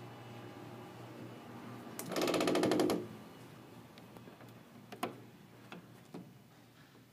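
A steady low hum, broken about two seconds in by a loud, fast rattle lasting about a second, followed by a few light clicks or knocks.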